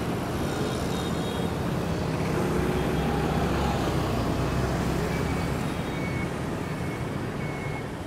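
Road traffic: a steady rumble of passing vehicle engines and tyre noise, swelling a little a few seconds in.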